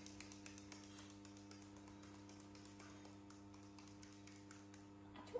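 Near silence: a faint steady hum, with many faint quick ticks through roughly the first half that thin out after about three seconds.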